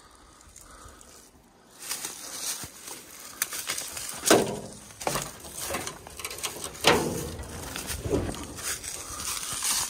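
Irregular footsteps on rough ground, starting about two seconds in, with two louder steps in the middle.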